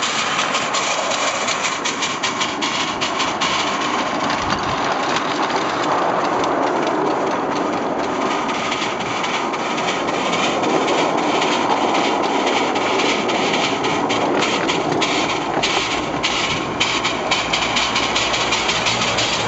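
Miniature 7¼-inch gauge American-style live-steam locomotive running along its track: a continuous rush of noise with rapid clicks from the wheels over the rails.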